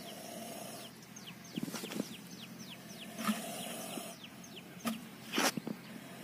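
Young Indian cobra hissing in two long breaths of about a second each, a sign of an agitated, defensive snake. Many short falling bird chirps sound throughout, and a few sharp knocks come through, the loudest about five seconds in.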